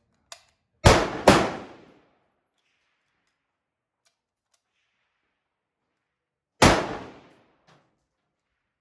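Gunshots from rifles in neighbouring bays of a covered range: two sharp reports about half a second apart near the start, then a third about six and a half seconds in, each with a short ringing tail. Faint clicks come between them as the Lee Enfield No.4's bolt is worked.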